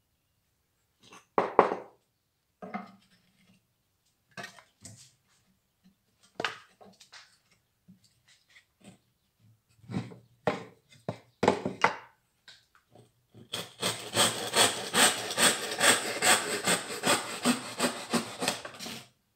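Fine-toothed hand saw cutting across a bark-covered wooden branch. Scattered knocks and short strokes at first, then a steady run of rapid back-and-forth strokes, about two or three a second, over the last five seconds, stopping abruptly as the cut goes through.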